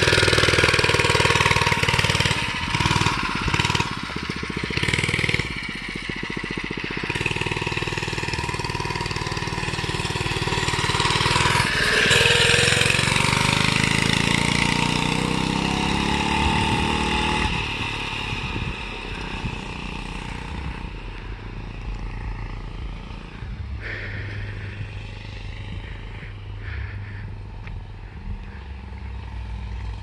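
Mini bike's small engine running as it rides off, its pitch rising and falling with the throttle, then fading steadily as it draws away.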